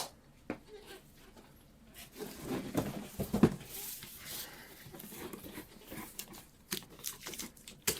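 Cardboard box being handled: irregular rustling and scraping with a few sharp knocks, starting about two seconds in.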